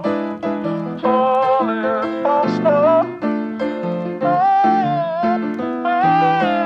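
Background music with keyboard chords and a melody line moving over them.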